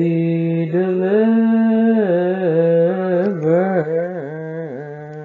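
Solo male voice chanting a psalm verse in Ethiopian Orthodox liturgical style. It holds long notes, then breaks into wavering, ornamented turns in the second half.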